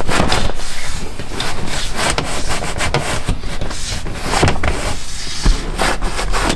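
Handling noise of a car's leather rear seat cushion being pulled up and worked out by hand: leather rubbing and scraping, with many scattered knocks and clicks from the seat and its retaining tabs.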